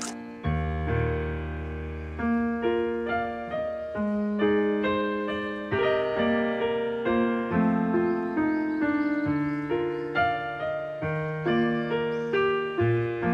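Background piano music: a melody of struck notes over sustained chords, each note fading after it is played.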